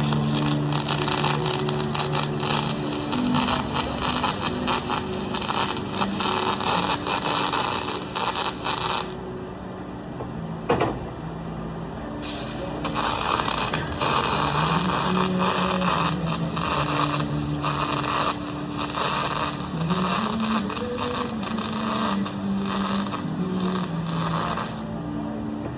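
Arc welding on aluminum: the arc crackles and hisses steadily over a low hum. It stops about nine seconds in and starts again a few seconds later for a second run.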